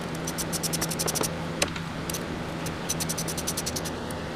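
Ratchet wrench clicking in two quick runs, about ten clicks a second, as the 8 mm bolts of the transmission valve body cover are backed out.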